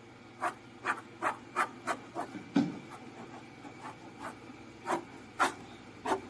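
Graphite pencil scratching across drawing paper in short, quick sketching strokes: a run of about seven strokes, a pause of about two seconds, then a few more near the end.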